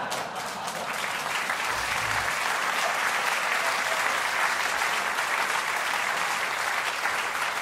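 Theatre audience applauding steadily: dense, sustained clapping from a large seated crowd in response to a punchline.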